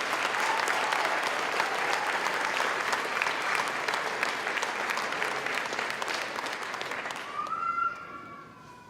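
Audience applauding, a dense patter of many hands clapping that dies away about seven and a half seconds in.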